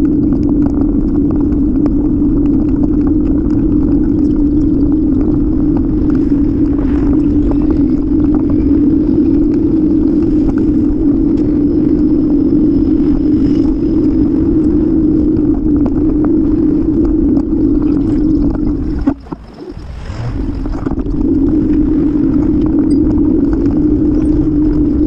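Strong wind buffeting the microphone of a camera on a moving bicycle: a loud, steady rumble that drops away for about a second roughly nineteen seconds in.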